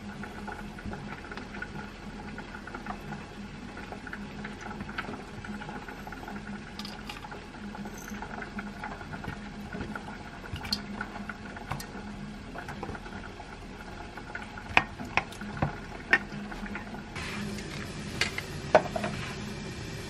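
Soy-sauce seasoning liquid in a saucepan with green onion and chili added, bubbling at a simmer, with light handling clicks. A few sharp knocks come in the last few seconds.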